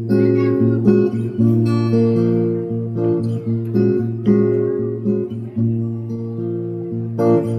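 Acoustic guitar strummed in a steady rhythm, chords ringing, in an instrumental break between sung lines.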